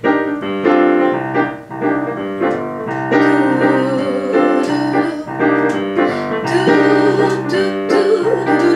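Piano playing a repeating cycle of jazz chords. About three seconds in, a young woman's voice joins, improvising a wordless scat line over the chords as a vocal warm-up.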